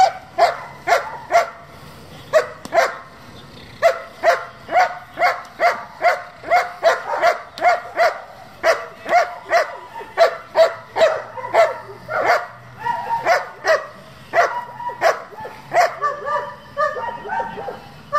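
A German Shepherd barking repeatedly and rapidly, about two barks a second: the excited, demanding barks of a dog being built up in drive training for a grip on a tug. Near the end the barks turn higher and whinier.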